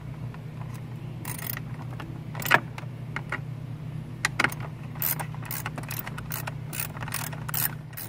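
Quarter-inch-drive ratchet clicking in short runs as a 7 mm hex screw in the centre console is backed out, over a steady low hum.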